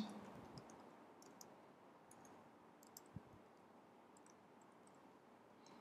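Faint, scattered keystrokes on a computer keyboard: a few soft clicks here and there against near silence.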